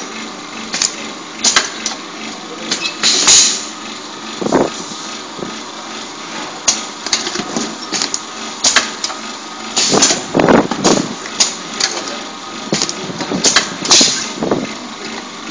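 Juice bottle-filling machine running: chain conveyor and rotary star wheel moving bottles, with a steady mechanical hum and sharp clacks and knocks at irregular intervals.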